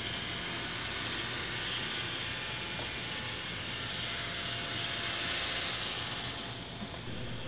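Steady background noise: a low hum under a hiss, with no distinct event. Room tone.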